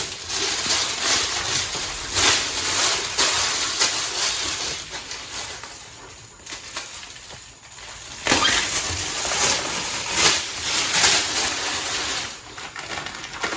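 Plastic floor underlayment sheeting rustling and crinkling as it is handled and spread out, quieter for a while about six to eight seconds in.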